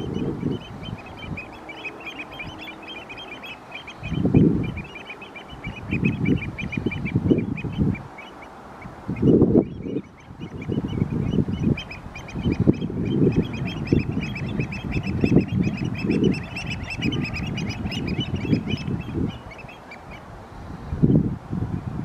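A flock of birds calling continuously, many short high notes overlapping in a steady chatter that thins out near the end. Gusts of wind rumble over the microphone again and again, and these are the loudest sound.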